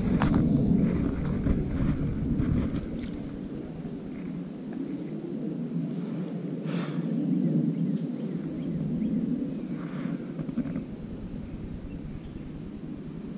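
Low, wavering outdoor rumble, with a few faint clicks and a brief swish about seven seconds in.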